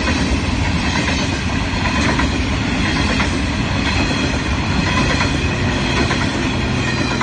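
A freight train of hopper wagons rolling past close by, a steady heavy rumble of wheels on rail with sharp clicks as the wheels cross rail joints.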